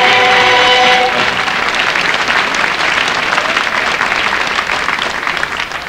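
A musical number ends on a held chord about a second in, and an audience applauds; the applause thins out near the end.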